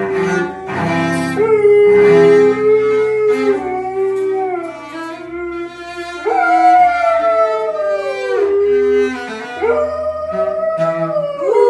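A cello being bowed in long sustained notes while a dog howls along with it. The howls are long and slide down in pitch, clearest about six seconds in and again near the end.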